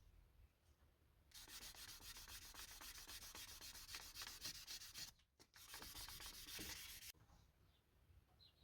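Rapid scratchy rubbing strokes by hand against a surface. They start about a second in, break off briefly about two-thirds of the way through, and stop a second or so before the end.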